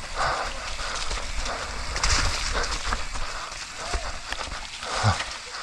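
Mountain bike riding down a wet, slippery trail, heard from a camera mounted on the rider or bike: tyres working over mud and roots, with irregular knocks and rattles from the bike and a heavier thump about five seconds in.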